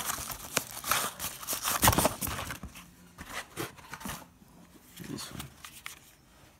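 Plastic wrapping crinkling and rustling as an electric shaver is pulled out of its bag, with dense crackles for the first couple of seconds and the loudest crunch a little under two seconds in. The crackles then thin out into scattered quieter rustles and clicks.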